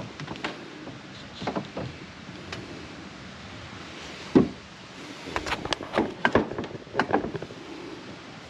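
Knocks and clicks of fishing rods being set into and adjusted in DIY rod holders on a folding kayak. There is one loud knock about four seconds in, then a quick cluster of sharper clicks over the next few seconds.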